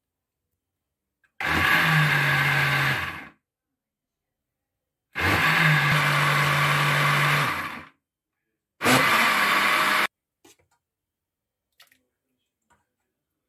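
Electric countertop blender puréeing cooked fava beans, run in three short pulses of about two seconds, two and a half seconds and one second, with the motor starting and stopping sharply each time. The mash is blended a little at a time because it is still warm. A few faint clicks follow the last pulse.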